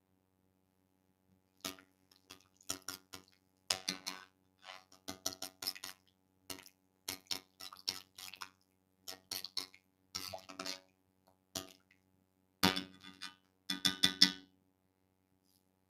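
A spoon clinking and scraping against glass and a cooking pot in irregular bursts of small knocks, as honey is spooned in. The loudest clinks come near the end.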